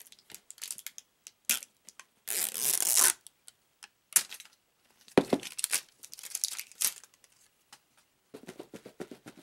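Plastic seal strip being torn off the lid of a tub of Stokers dip, with crinkling of the plastic. A string of short rustling tears, the longest and loudest about two seconds in, and more crinkling around five to seven seconds.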